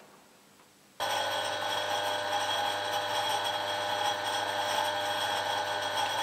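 Harrison engine lathe running, a steady mechanical hum with a high gear whine, starting abruptly about a second in.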